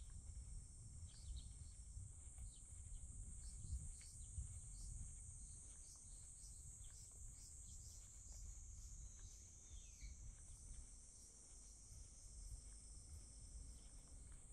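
Faint, steady high-pitched buzzing of insects, with scattered short bird chirps and one falling bird call about ten seconds in, over a low rumble.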